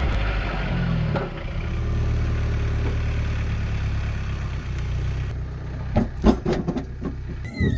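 An engine running steadily at a low idle, with several sharp knocks near the end.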